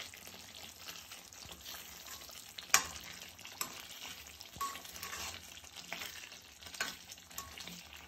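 Matar paneer gravy simmering and sizzling in a kadai as a spoon stirs it, with scattered light clicks of the spoon against the pan, the sharpest about three seconds in.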